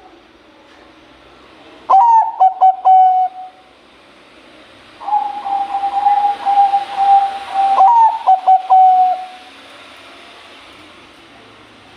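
Zebra dove (perkutut, Bangkok type) cooing: two song phrases of ringing pulsed coos, a short one about two seconds in and a longer one from about five seconds with a long held note.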